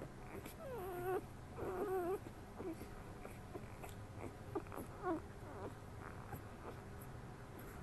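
Young puppies whimpering. Two wavering squeals of about half a second each come within the first two seconds, then a few shorter whines around five seconds in.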